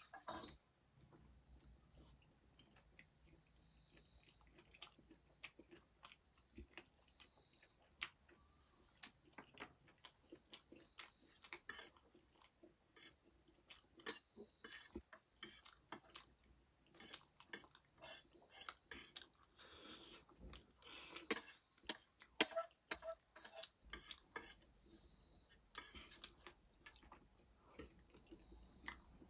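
Mukbang eating sounds: a metal spoon clinking and scraping on a steel plate while noodles are slurped and chewed, in many short clicks that come thicker after about ten seconds. Under them runs a steady high-pitched background drone.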